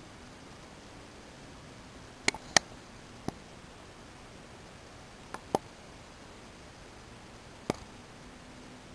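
Computer mouse clicking: six short, sharp clicks, a close pair and a single twice over, with a steady faint hiss underneath.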